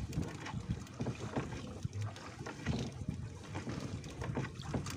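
Water splashing and lapping against a small boat's hull, with irregular knocks and wind on the microphone.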